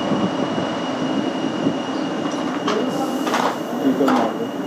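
Machinery running steadily, with a thin high whine over it and a few short clicks in the second half.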